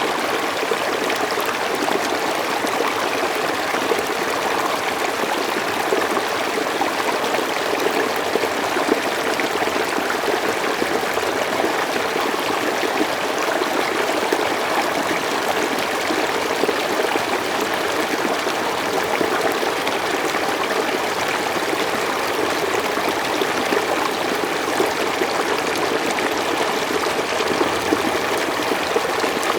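Water of a stream running steadily, an even, unbroken rush of flowing water.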